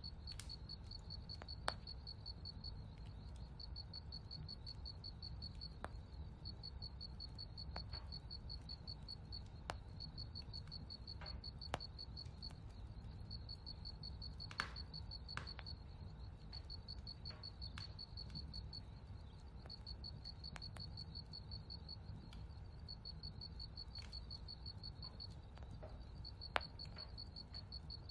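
A cricket chirping in a steady, rapid, high-pitched pulse, with a short break near the end, over a low background rumble. A handful of sharp ticks are scattered through.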